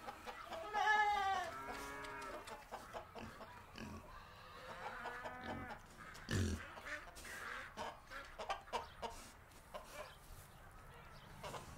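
Chickens clucking faintly, a few short calls with scattered clicks and a dull thump about six seconds in.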